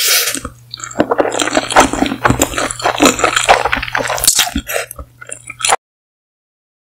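Close-miked wet slurping and chewing of saucy instant ramen noodles: a dense run of small squelches, lip smacks and sticky clicks. It cuts off suddenly into silence near the end.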